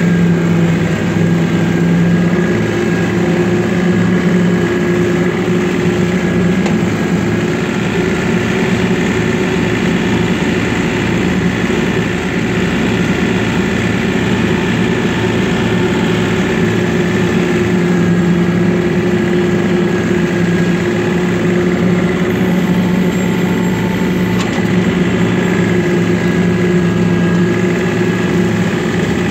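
John Deere 3025E compact tractor's three-cylinder diesel engine running steadily under way, heard close up from the operator's seat.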